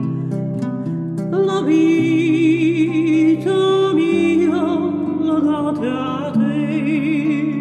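Music: a classical Italian song, with a melody line carrying wide vibrato held over a steady guitar accompaniment that changes chord every second or two.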